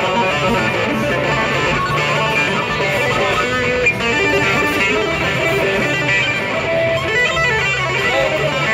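Electric guitar played through a GTC Sound RevPad touch-pad effects unit. The notes jump between different pitches as different sections of the pad are touched, with a few sliding pitch bends near the end.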